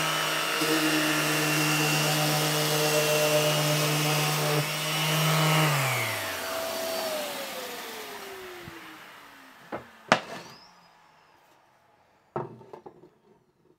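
An electric motor runs steadily at an even pitch, then is switched off about six seconds in and winds down with a falling pitch over about three seconds. A few sharp knocks follow.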